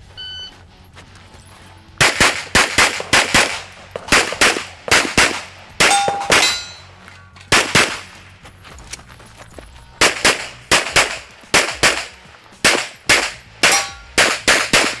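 A competition pistol stage run: a short electronic shot-timer beep at the start, then from about two seconds in, fast strings of pistol shots in quick pairs, broken by short pauses as the shooter moves between positions. Now and then a steel target rings after a hit.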